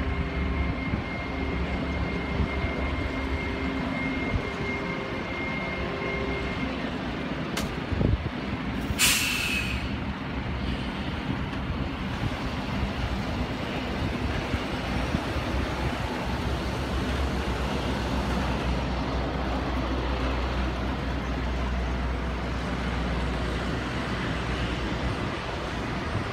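Steady machinery noise on an airport apron: a continuous rumble and hiss with faint steady whining tones for the first few seconds, a click, then a short sharp hiss of air about nine seconds in.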